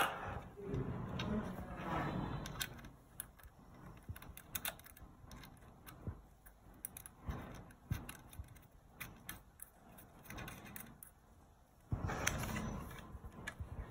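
Scattered small plastic clicks and the rustle of cables being handled as connectors are plugged into the back of a car stereo head unit, with a louder spell of handling noise near the end.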